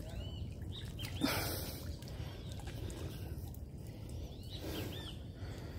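Birds calling in short arched chirps, a few in quick succession near the start and again near the end, over a low steady rumble. A brief rush of noise comes about a second in.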